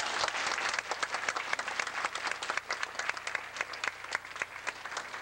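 Audience applauding, many hands clapping together; the clapping is dense at first and thins out toward the end.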